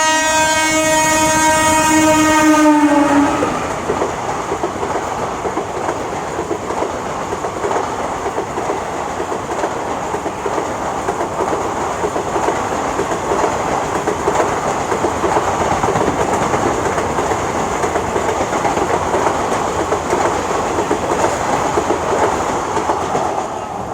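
A fast train passing at speed: its horn sounds for about three seconds, the pitch dipping as it ends, then the rushing clatter of the carriages going by, easing off near the end.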